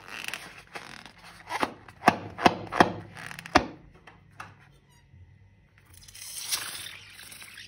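A run of sharp clicks and taps, about two a second, for the first three and a half seconds, then a soft rustling hiss near the end.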